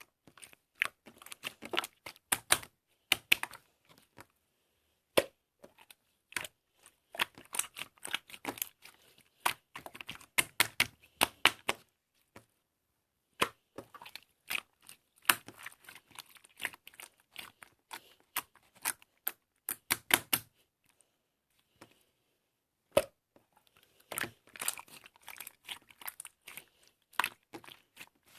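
Close-up crackling and clicking in irregular rapid clusters, broken by a few short pauses.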